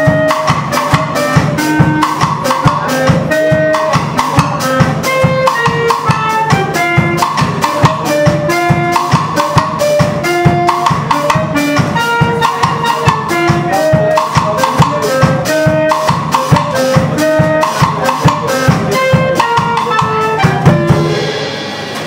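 Live band music: a clarinet melody of short held notes stepping up and down over a fast, steady drum-kit beat. The music stops abruptly about a second before the end.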